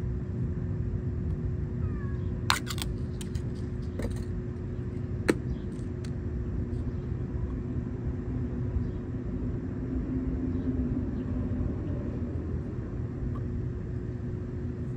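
Steady low mechanical rumble with a constant hum, like a running engine or machine, broken by a few sharp clicks in the first half.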